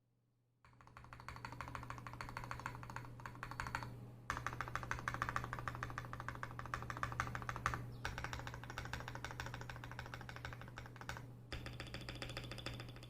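Fast, continuous typing on an Ajazz AC081 mechanical keyboard with lubed KTT Red Wine linear switches, PBT keycaps and tape and PE-foam mods, a dense run of keystrokes starting about half a second in.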